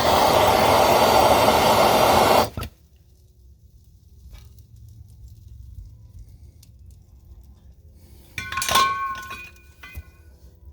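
Soldering torch flame hissing loudly for about two and a half seconds, then cut off abruptly. About eight seconds in, a single metallic clink rings for a moment.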